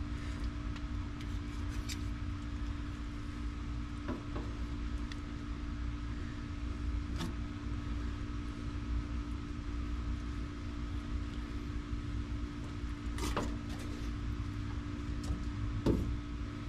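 A steady mechanical hum with a low rumble underneath runs throughout. A few light knocks and scrapes come from a knife working fish fillets on a metal cleaning table, the sharpest about four, seven, thirteen and sixteen seconds in.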